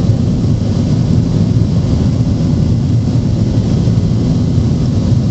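Steady low rumble inside the cabin of a Boeing 737-800: its CFM56-7B turbofan engines at climb power and the rush of air past the fuselage.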